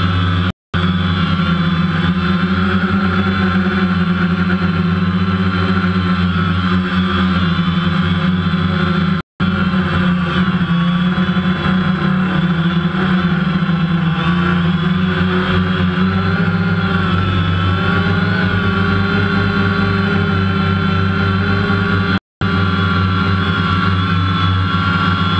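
DJI Phantom quadcopter's four electric motors and propellers buzzing steadily in flight, heard close up through the GoPro mounted on it, as a stack of whining tones that waver slightly as it manoeuvres. The sound cuts out briefly three times.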